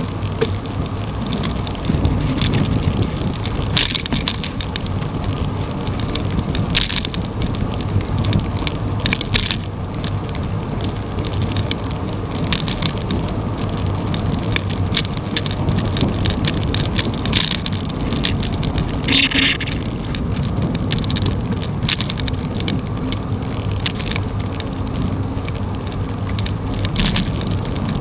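Wind buffeting the microphone of a bicycle-mounted camera while riding, a steady low rumble, with scattered sharp clicks and rattles from the bike over the paved trail.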